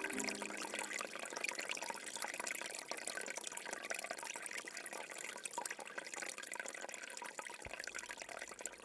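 Aquarium water trickling and bubbling steadily, a crackly splashing noise with no tone to it.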